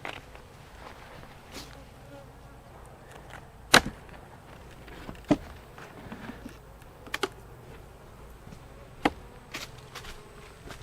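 Honey bees buzzing steadily around an opened hive, with several sharp knocks and clicks from the wooden hive equipment being handled, the loudest about four seconds in.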